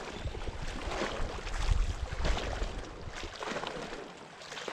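Wind buffeting a GoPro's microphone, a low rumble that swells and dips, with a few soft knocks and rustles from the jig being handled.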